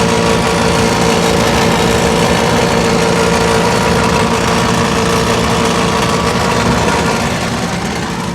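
Rooftop HVAC unit's draft inducer motor running loud and rough, a steady noise with several steady tones through it, easing off slightly near the end. It is the sound of a failing inducer motor, probably its bearings.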